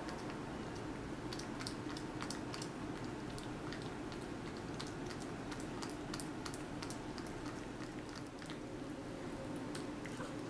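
A long-haired cat chewing and licking at a peeled banana: rapid, irregular small clicks and smacks of its mouth, over a steady hum.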